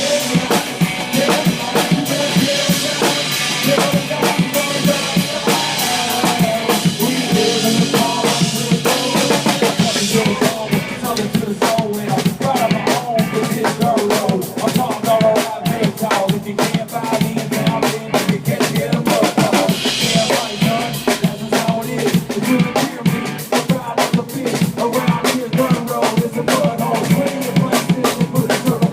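A country-rap song performed live and played loud, with a driving drum-kit beat of bass drum and snare under the rest of the music.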